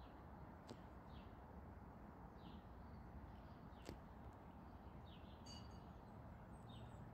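Faint, scattered short chirps of small songbirds, a few seconds apart, over a low steady background rumble. A sharp click about four seconds in.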